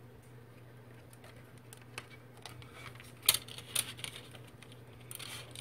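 Ribbon rustling and light clicks as it is threaded through a plastic bow loom, with two sharper clicks a little past the middle and a brief rustle near the end.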